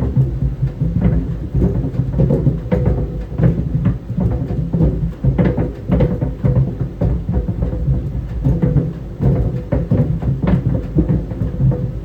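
Tennis balls tumbling in a running clothes dryer, thudding irregularly against the drum several times a second over the machine's steady hum.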